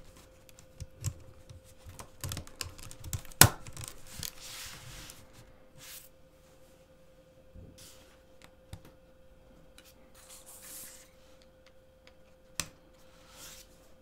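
Plastic LEGO plates clicking and clattering as they are handled, with a couple of sharper snaps and short stretches of sliding rustle. A faint steady hum sits underneath.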